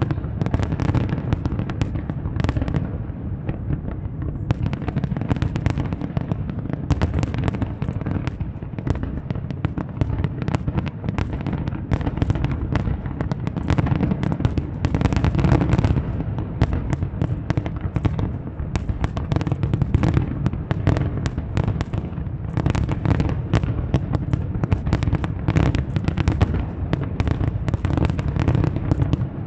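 Fireworks display: a dense, continuous barrage of shell bursts and crackles, many bangs a second, over a deep rumble.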